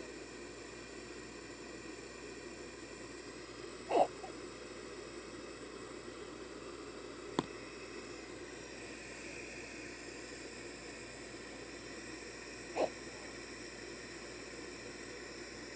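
Two short, sharp gasps from a sleeper, one about four seconds in and a weaker one near thirteen seconds, over a steady hiss. A single faint click falls between them.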